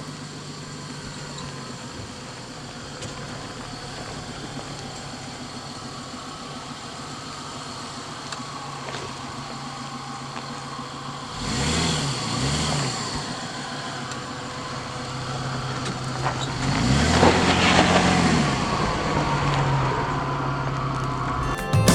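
Jeep engine running at low speed off-road, revving up and easing off twice, once midway and again, longer, in the second half.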